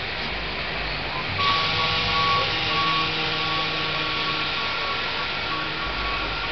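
City transit bus running at a curbside stop; about a second and a half in, a hissing rush and several steady whining tones start up and hold without changing pitch.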